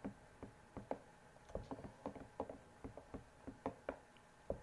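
Plastic spoon stirring a drink in a glass mug, ticking lightly against the glass about three or four times a second at an uneven pace.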